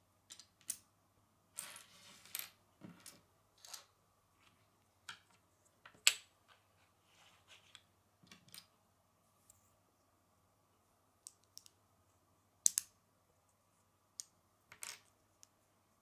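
Small Lego plastic pieces clicking as they are handled and pressed together: scattered light clicks and snaps with pauses between, the sharpest about six seconds in and again near thirteen seconds.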